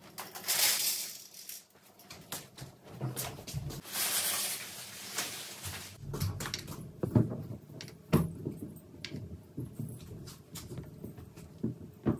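Household handling noises: two soft hissing rushes in the first half, then a run of light knocks and taps.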